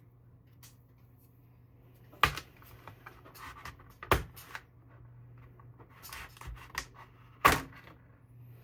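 Hands handling the RAM kit's packaging and parts: three sharp clicks or knocks, about two, four and seven and a half seconds in, with lighter taps and rustling between them over a faint steady hum.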